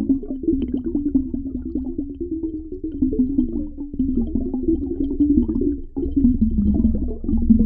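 Muffled underwater water sound: a continuous low, wavering bubbling rumble with many small crackles running through it.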